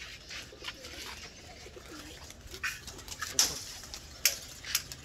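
Domestic pigeons cooing in low, short calls, with several sharp clicks and scrapes scattered through.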